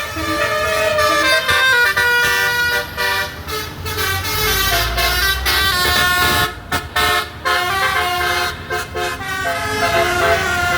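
Bus basuri (telolet) musical air horn playing a tune in a run of stepped notes, with a few short breaks between toots after the middle. A low engine rumble sits under it around the middle.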